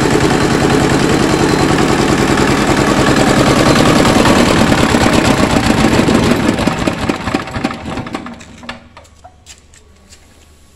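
Small engine running with a rapid, steady knock, then shut off about six seconds in, slowing and dying out by about nine seconds.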